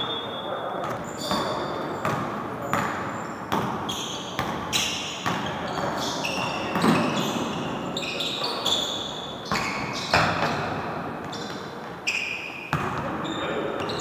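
Basketball game in a gym: the ball bouncing repeatedly on the wooden court, sneakers squeaking in short high chirps, and players' voices, all echoing in the hall.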